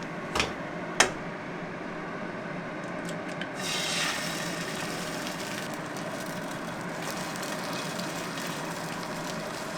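Scallion pancake frying in hot oil in a pan: a steady sizzle that grows louder and brighter about four seconds in. Two sharp knocks near the start.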